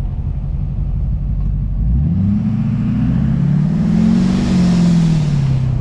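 Chevrolet Silverado 2500HD turbo-diesel pulling under acceleration: engine pitch rises about two seconds in, climbs again, then falls away near the end. Over it a loud blowing air noise swells and fades, boost escaping through a torn intercooler flex hose.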